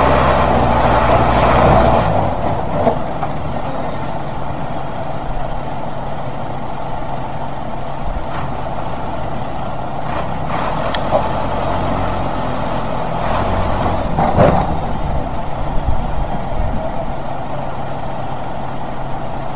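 Tractor and loader engines working hard to pull a heavy steel trawler up the ramp. They run high for the first two seconds, then settle to a lower steady run, with a few knocks and clanks around the middle. The pull is not enough to move the boat.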